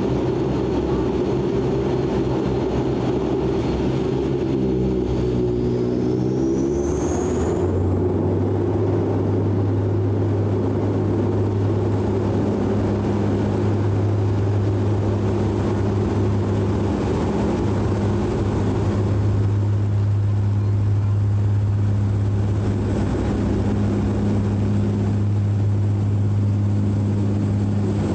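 Cabin sound of a DHC-8 Q400 turboprop's two Pratt & Whitney PW150A engines spooling up to takeoff power, with a rising whine about seven seconds in. The rise settles into a steady, loud propeller drone as the aircraft rolls down the runway for takeoff.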